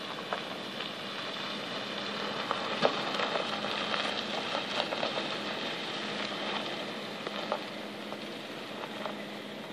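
2004 Chevrolet Silverado pickup driving past on a gravel lot: tyres crunching and popping over the gravel under a steady engine and road noise. It is loudest as the truck passes, about three to five seconds in, then fades as it pulls away.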